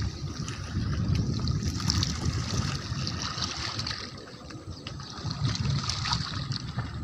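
Water trickling and running in a small stream, an uneven rushing hiss with a low rumble underneath.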